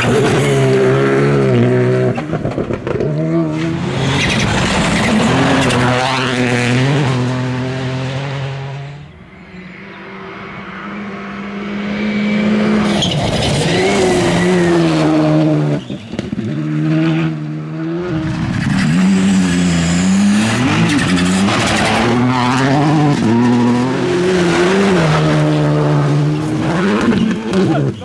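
Škoda Fabia RS Rally2's 1.6-litre turbocharged four-cylinder engine running at full attack on gravel, revving up and dropping back with each gear change as the car passes. It fades out about nine seconds in, then builds again as another loud pass with the same repeated rises and drops.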